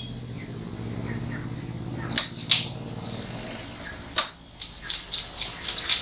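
Heavy cleaver chopping a parrotfish fillet into cubes on a wooden block: a couple of sharp knocks about two seconds in, another at about four seconds, then a quick run of about six chops near the end. A steady low hum sits under the first part.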